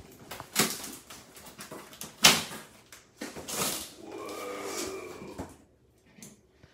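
Packing tape being ripped off a cardboard box and the flaps and plastic wrap being handled, in a few sharp tearing and scraping strokes, the loudest about two seconds in. About four seconds in, a whining tone is held for over a second.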